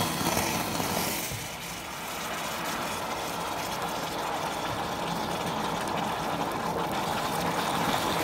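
Hot water pouring in a steady stream from a stainless steel kettle into a sink basin and down the drain, onto sodium hydroxide (lye) dumped there to clear a clog. The pour dips briefly about two seconds in, then runs on evenly.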